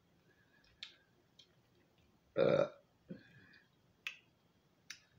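A single short burp, about two and a half seconds in, with a few light clicks before and after it.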